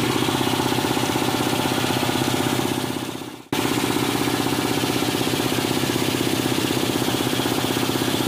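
Electric air compressor running just after switching on, its piston pump making a rapid, steady pulsing. About three and a half seconds in the sound fades and then cuts back in abruptly.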